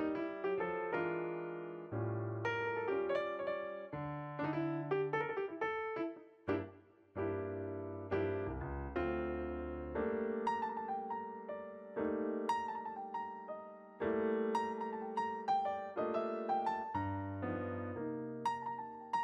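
Background piano music: a melody of struck notes over bass notes that change about every two seconds.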